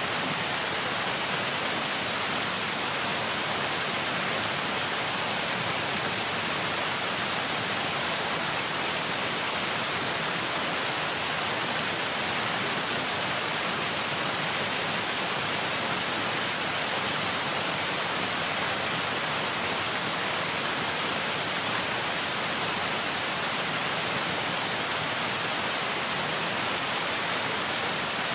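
Analog television static: a steady, unbroken hiss from a TV with no signal, strongest in the high end.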